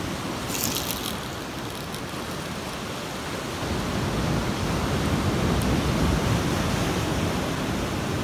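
Ocean surf washing through the rocks: a steady rush that swells a little louder from about four seconds in.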